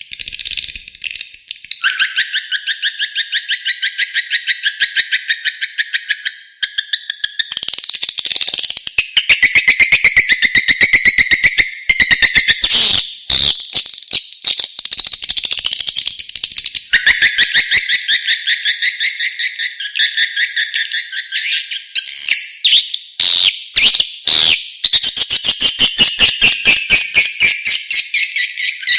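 Swiftlet calling-sound playback: continuous rapid twittering chirps, several a second, in runs that change pattern every few seconds, with nothing in the low range.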